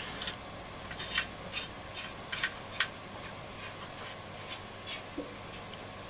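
Light, irregular clicks and scratches from hands handling a transistor radio's chassis and tuning capacitor during inspection.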